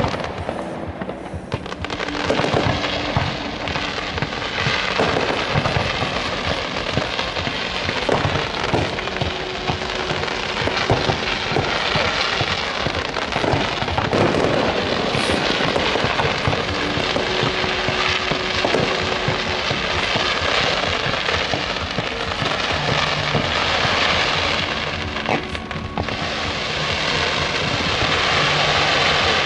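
Aerial fireworks display: a dense, unbroken run of shell bursts and crackling, with music heard alongside.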